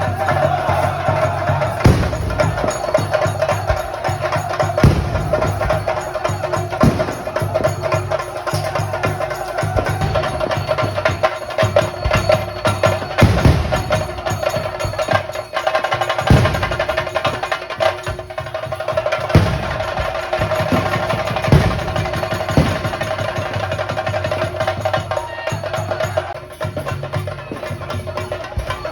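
Live Theyyam temple percussion: chenda drums beaten continuously, with sharp accented strokes now and then, over a steady high ringing tone.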